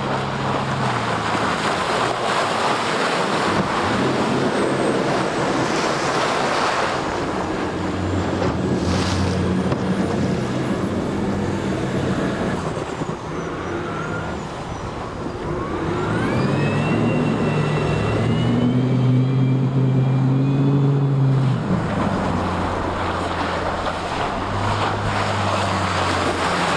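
OXE300 diesel outboard driving a workboat hard through choppy water, with rushing water and spray. The engine note steps up and down as the boat goes from full throttle to full reverse in crash stops, and a whine rises in pitch about two-thirds of the way through.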